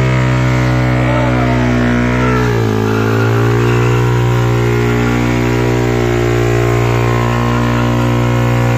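Yamaha R15 V3's single-cylinder four-stroke engine held at high revs during a stationary rear-tyre burnout, the pitch steady apart from a brief dip about two and a half seconds in before the revs climb back.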